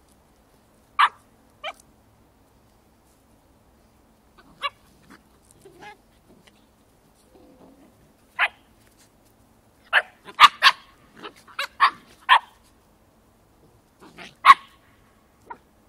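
Samoyed puppies giving short, high-pitched barks and yips in a play squabble: single barks at first, a quick flurry of them around the middle, and one more loud bark near the end.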